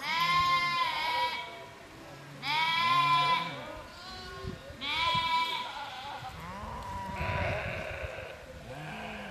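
A flock of sheep and goats bleating. Three loud, high bleats come about two and a half seconds apart, with a fainter bleat later and lower bleats in between.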